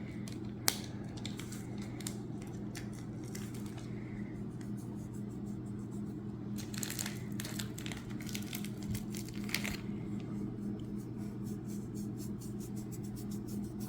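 Butter slime being handled and worked with the hands as glitter is mixed in: small scattered clicks and crackles, with a sharper click about a second in, over a steady low hum.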